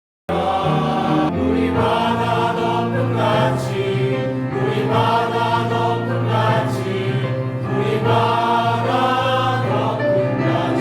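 Church choir singing a worship song in Korean over instrumental accompaniment with a steady low bass line, cutting in abruptly about a third of a second in.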